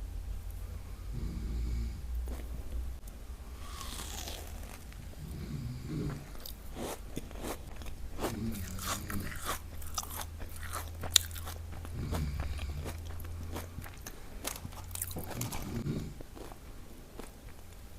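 Close crunching and chewing as a Dubai chewy cookie with a crisp kataifi filling is bitten and eaten, in a burst of sharp crackles. A man's snoring comes every three to four seconds behind it, over a steady low hum.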